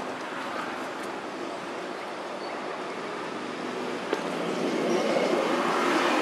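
Steady engine noise of a passing motor vehicle, growing louder from about four and a half seconds in.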